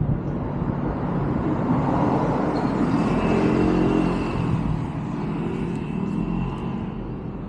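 A car passing by. Its tyre and engine noise swells to a peak about three to four seconds in, then fades away.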